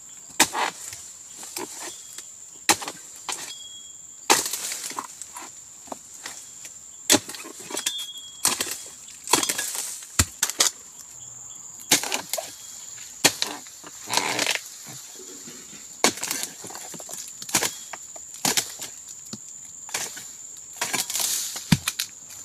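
Pole-mounted harvesting chisel chopping into oil palm frond bases and bunch stalks: sharp woody cuts at irregular intervals, about one a second, with short spells of fibrous tearing and frond rustle between them.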